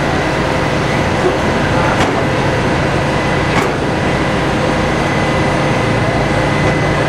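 McLaren 570S twin-turbocharged V8 idling steadily, with voices in the background and two short sharp clicks, about two and three and a half seconds in.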